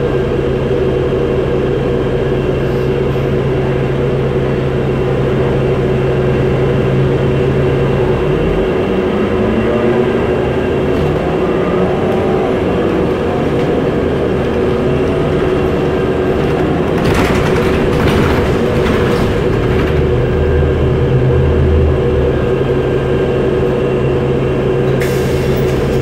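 City bus engine heard from inside the cabin, running steadily at a stop and then rising in pitch about eight seconds in as the bus pulls away and accelerates. A steady hum runs under it, with a short burst of rattling from the bus around the middle.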